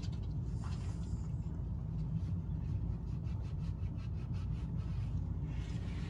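Steady low room hum, with a run of faint, quick rubbing strokes from about two seconds in.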